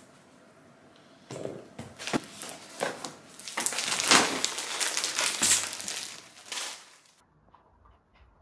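Plastic and paper bags rustling and crinkling in quick, crackly bursts as they are rummaged through. It starts about a second in, is loudest in the middle, and stops abruptly near the end.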